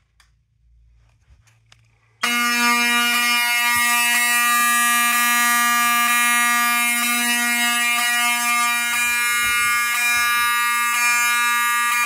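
Wheelock 7002 mechanical fire alarm horn sounding a loud, steady buzz from about two seconds in, then cutting off right at the end as the alarm is silenced at the panel.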